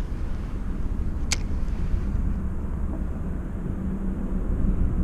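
Steady low rumble of traffic crossing the concrete road bridge overhead, heard from beneath the span, with one sharp click about a second in.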